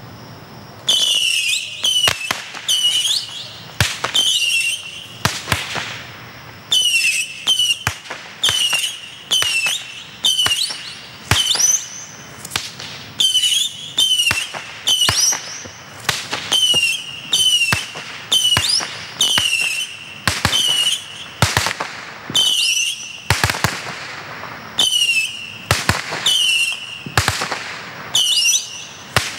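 Black Cat Missiles Base, a 100-shot missile battery, firing shot after shot in quick succession: short whistles mixed with sharp cracks and bangs, with brief pauses between volleys.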